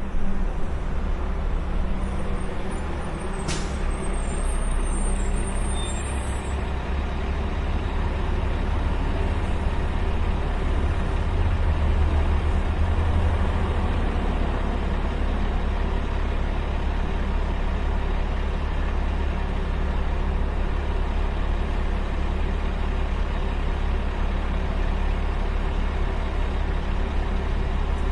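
City street traffic with a steady low rumble of passing vehicles. A few seconds in there is a sharp click and a brief high-pitched squeal.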